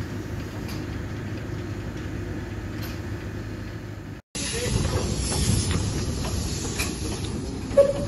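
Small 1922 industrial steam shunting locomotive: a steady low rumble, then, after a cut about four seconds in, louder steam hissing from the open cylinder drain cocks as it moves off close by. A short, loud tone sounds near the end.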